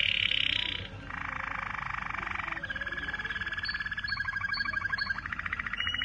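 Waterslager canary singing: a string of rapid trills and rolls, each held for a second or two at its own pitch, from a high trill to a lower, denser roll, then a fast pulsing trill with short high notes over it near the end.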